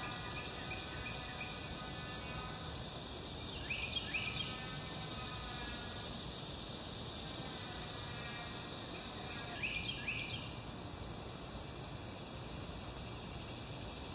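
Steady high-pitched chorus of insects, with a few short rising bird chirps about 4 seconds in and again about 10 seconds in. A faint pitched hum comes and goes under it.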